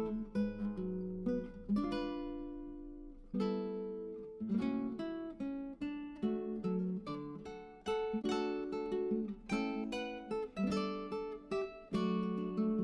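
Background music: an acoustic guitar picking a melody, its plucked notes ringing and fading one after another.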